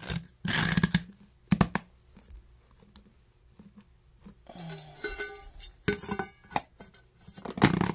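A rotary tumbler barrel being closed by hand: its rubber lid is pressed into place and its metal end cover is fitted over it. The result is a string of knocks and clicks with short rubbing noises between them, louder near the start and near the end.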